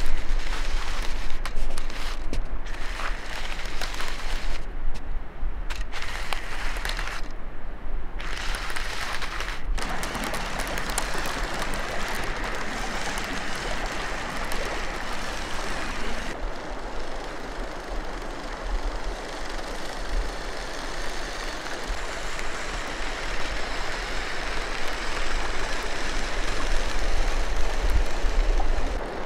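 Remote-controlled motorized LEGO Technic 42006 tracked tractor driving, its electric motors and plastic tracks running over snow and stony ground. The sound changes abruptly twice, about ten and sixteen seconds in.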